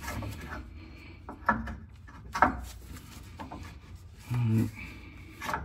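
Rubbing and scraping with a few sharp knocks as a gloved hand works a red lowering coil spring loose from its seat on a Buick Grand National's rear axle, with a short low grunt about four seconds in.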